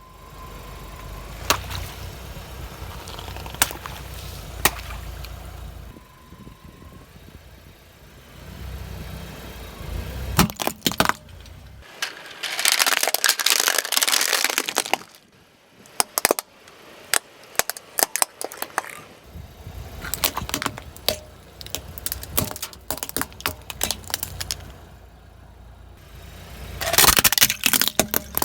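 Objects crunching and cracking as a car's tyre rolls over and crushes them: scattered sharp snaps, then two longer spells of dense crunching, one about halfway through and one near the end. A low rumble runs under the first third.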